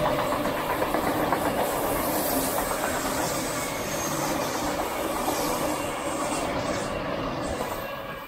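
Sydney electric suburban train running along the platform, a steady rolling rail noise that fades away near the end.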